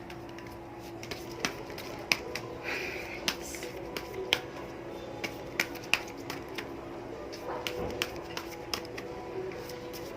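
A deck of oracle cards being shuffled by hand, the card edges giving quick irregular clicks and snaps, over a faint steady hum.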